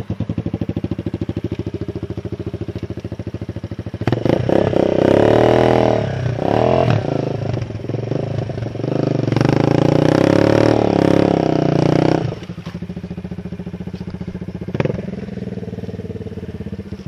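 Kawasaki KLX dirt bike's single-cylinder four-stroke engine running at a steady lower level, then revved hard for about eight seconds while the bike is pushed up a deep mud rut, then dropping back. There is a single sharp knock about fifteen seconds in.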